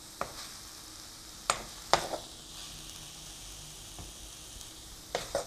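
Ground spice masala frying in oil in a nonstick kadai, a steady faint sizzle, with a metal spoon clacking and scraping against the pan a few times as it is stirred.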